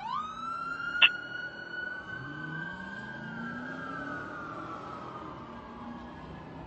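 Fire engine siren switching from a fast yelp to a wail that rises, holds, then slowly winds down over several seconds, with one short loud blast about a second in. The truck's engine note climbs beneath as it accelerates.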